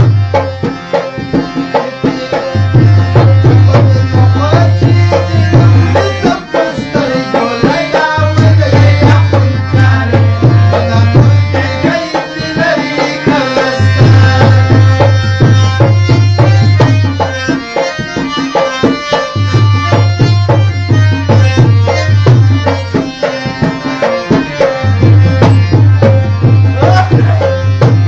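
Music with a fast hand-drum pattern over it and a deep bass note that swells in for a few seconds and drops out again, about every five and a half seconds.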